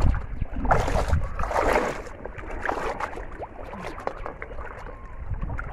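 Water sloshing and splashing as a person wades waist-deep through a weedy pond, with two louder bursts of splashing, about one and two seconds in.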